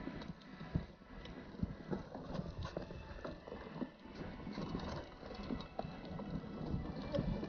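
Mountain bike clattering over rough trail: irregular knocks and rattles from the bike over a low rumble.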